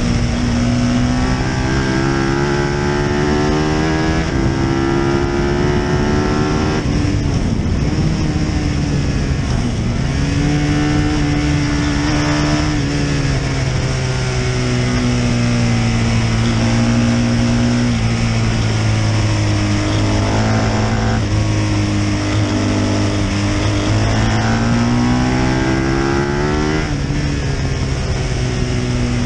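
Britten V1000's V-twin racing engine running hard on track. Its pitch climbs through the revs and drops sharply at gear changes or off the throttle several times, heard from a camera mounted low by the front wheel.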